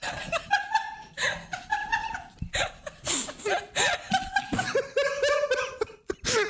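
Two men and a woman laughing in repeated bursts, stifling it behind their hands.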